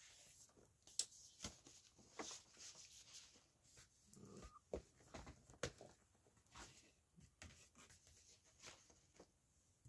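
Near silence with faint, scattered taps and rustles of vinyl records and their packaging being handled.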